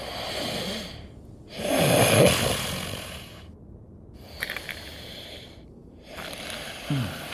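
A man's voice-acted snoring: slow, breathy sleeping breaths, four in all, the second the loudest, with a short sleepy murmur near the end.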